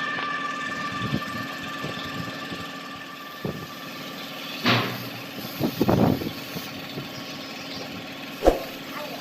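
Air compressor running steadily with a constant hum, with a few short knocks, the loudest about halfway through and one near the end.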